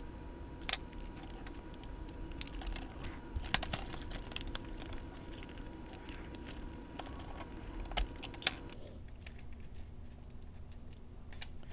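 Small screwdriver and fingers working on a plastic model train locomotive: scattered light clicks and rattles of plastic parts and tiny screws as it is taken apart. A faint steady hum runs underneath and stops about three-quarters of the way through.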